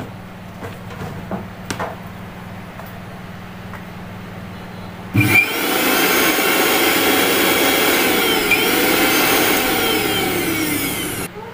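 A few light handling clicks, then a Bajaj mixer grinder's motor switches on about five seconds in, runs loudly and steadily for about six seconds with a slightly wavering pitch, and cuts off. It is running again now that its faulty overload protector has been bypassed with a wire.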